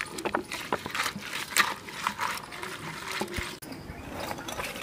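Water splashing and dripping as hands swish and rub cut climbing perch (koi fish) in a plastic basket, in short, irregular splashes.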